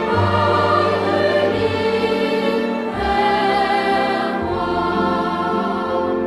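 Music with a choir singing held notes over a low instrumental accompaniment.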